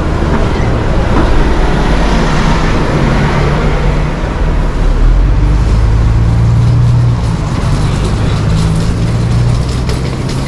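Busy road traffic passing close by: the steady low engine hum of heavy vehicles with tyre noise, the noise swelling a second or two in.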